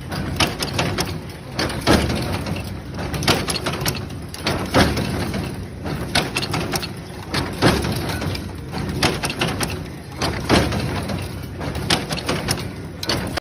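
Irregular knocks and clatter from factory work over a steady background noise of machinery, a sharp knock every half second to second or so.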